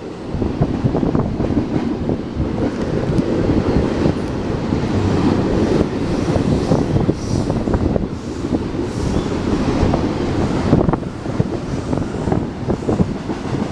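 Train passing close by: a steady rumble of rolling stock with repeated sharp clacks of wheels over the rail joints.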